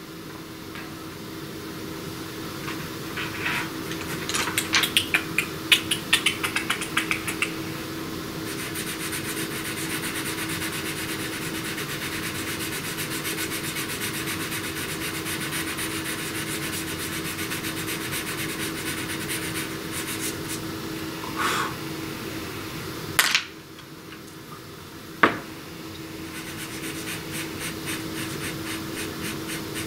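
Pastel pencil scratching and rubbing on the drawing surface in quick strokes, densest a few seconds in, over a steady low hum. Two sharp knocks come a little past the middle.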